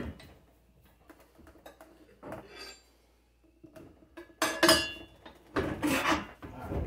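Metal tire irons clanking against a mower wheel's metal rim while an old dry-rotted tire is pried off its bead. A sharp knock comes first, then scattered light taps, then louder clanks with a short metallic ring about four and a half seconds in, and more knocks shortly after.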